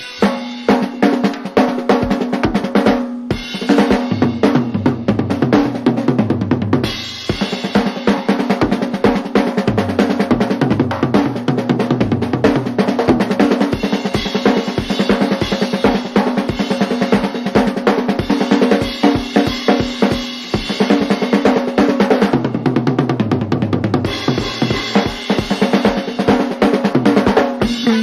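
Drum-led instrumental music from a 1970 drum-feature orchestra record: a drum kit plays a busy, driving passage of rapid snare, bass-drum and cymbal strokes over a stepping bass line, with brief breaks in the drumming about 3 and 7 seconds in.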